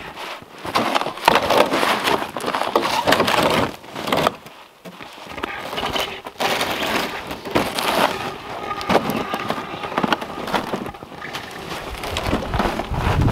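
Irregular crunching and scraping in snow: boots and a heavy cherry log being walked upright, and a plastic sled dragged up beside it. A deeper rumble builds near the end.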